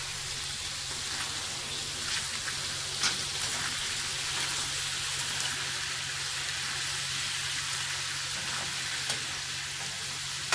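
Ground beef frying in hot oil in a pan: a steady sizzle with scattered crackles and a couple of sharper pops, about three seconds in and near the end. A steady low hum runs underneath.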